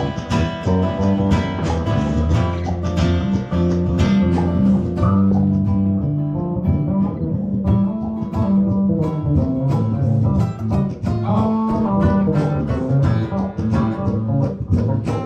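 Live instrumental guitar music, strummed and picked, over a moving low bass line with no singing.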